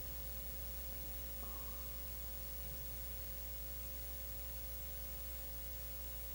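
Steady low electrical hum with a thin steady tone above it, and no music.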